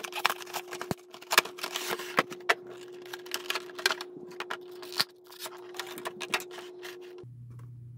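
A cardboard Pokémon card collection box being opened and its packs handled: quick, irregular clicks, taps and crinkling rustles of cardboard and wrapping, over a faint steady hum.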